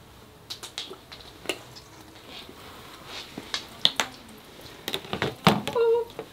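Plastic paint bottles clicking and knocking as they are handled and set down on a table: a scattering of sharp taps, with the loudest knock about five and a half seconds in. A brief pitched sound follows near the end.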